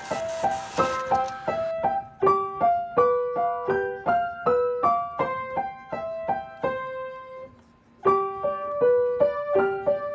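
Background music: a light melody of short piano notes. A hissing noise sits under it for the first couple of seconds, and the music drops out briefly near the end before picking up again.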